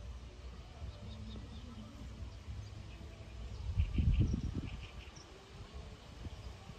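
Wind buffeting the microphone in a low rumble that swells to a gust about four seconds in. Faint, short high chirps come through in small clusters.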